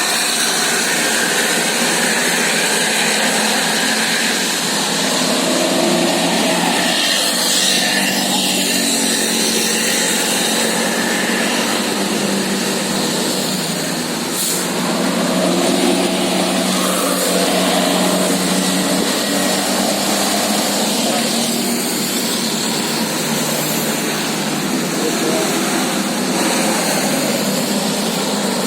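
Steady roadside traffic noise from passing vehicle engines, with people's voices at times.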